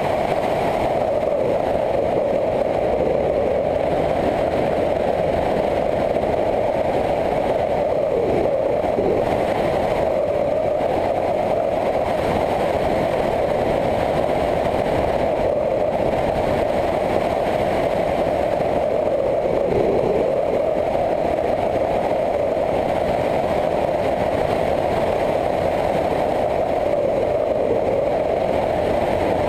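Motorcycle engine running steadily at cruising speed during a ride, its pitch dipping briefly twice, about eight and about twenty seconds in.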